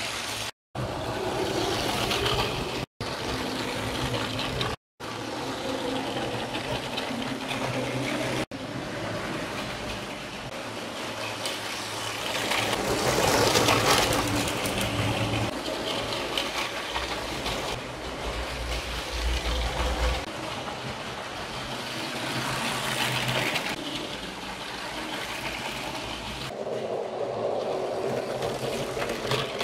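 LEGO trains running on plastic track: a steady electric motor hum and the rattle of wheels on the rails, swelling as a train passes close about halfway through. Three short silent gaps break the sound in the first few seconds.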